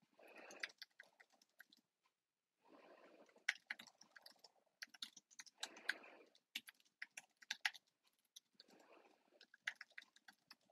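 Faint typing on a computer keyboard: irregular runs of key clicks with short pauses between words.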